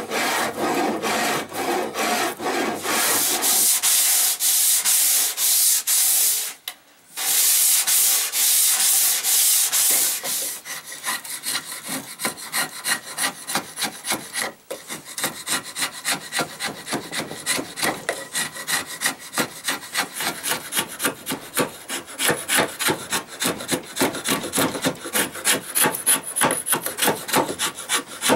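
Steel hand tool shaving a wooden handle blank: repeated scraping strokes on the wood. They come dense and fast for the first ten seconds, with a short break, then settle into separate strokes about three a second.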